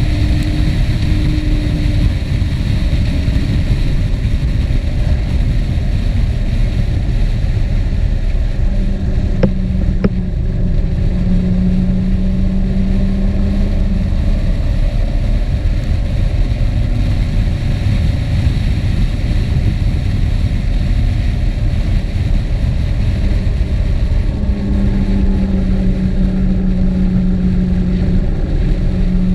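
A motor vehicle's engine running at a steady pitch under heavy wind noise on the action camera's microphone; the engine note shifts a few times, and there is a single click about ten seconds in.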